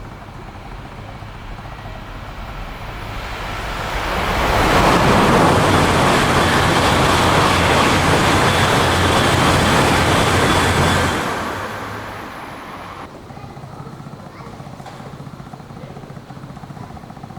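Train rushing out of a tunnel mouth and passing by: the noise builds over about two seconds, holds loud for about six seconds, then fades away.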